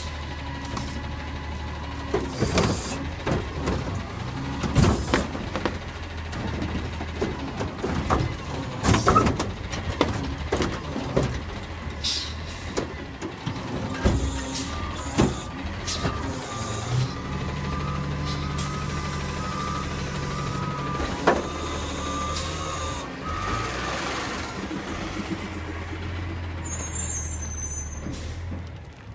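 Curotto-Can front-loader garbage truck working at the kerb: the diesel engine runs steadily and revs up for a few seconds past the middle as the hydraulics work, with loud clanks and bangs of a cart being handled through the first half. A repeating backup-alarm beep and bursts of air hissing come in during the second half.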